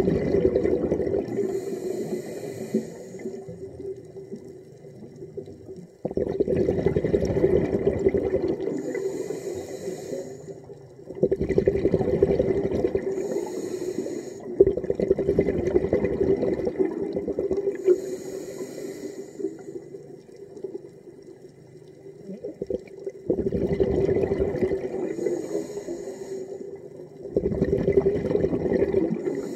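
A scuba diver's regulator underwater, breathing in a steady cycle about every five to six seconds. Each breath is a low, bubbling rush of exhaled air that starts suddenly, followed by the hiss of the next inhalation through the regulator.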